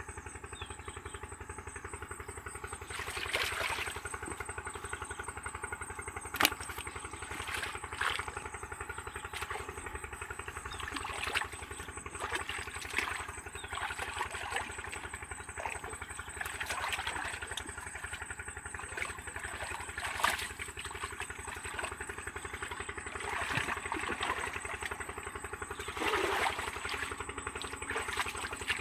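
A small engine running steadily, with scattered clicks and knocks over it; the sharpest knocks come about six seconds in and again about twenty seconds in.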